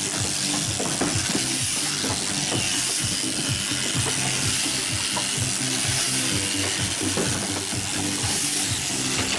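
Sheep crutching trailer at work: a shearing handpiece running with a steady high hiss, over irregular clanks and rattles from the machine's metal frame.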